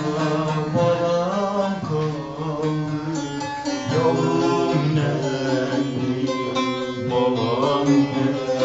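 Bağlama (long-necked Turkish saz) played solo, its strings picked and strummed in a continuous ornamented folk melody.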